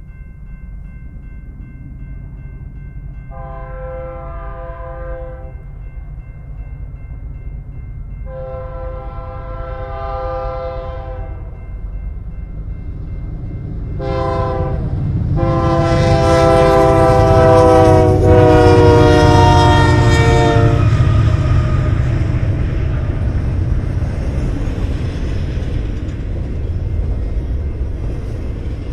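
Crossing bell dinging while a freight locomotive's air horn sounds the grade-crossing signal: two long blasts, a short one, then a final long one. The low rumble of the approaching train builds under the horn, and a double-stack intermodal train then runs past over the crossing.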